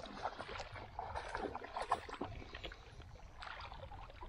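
Water splashing and sloshing at the shore, with scattered small knocks and rustles, and wind rumbling on the microphone.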